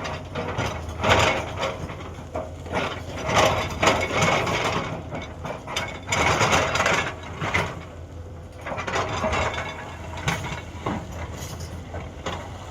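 Hyundai 210 excavator's diesel engine running steadily, with repeated bursts of clattering and grinding from the bucket working rock and soil, about five times.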